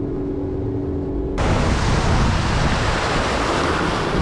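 Sea-Doo jet ski running along the water with a steady engine hum, then about a second and a half in a sudden, louder rush of spray and wind takes over as the hull throws water.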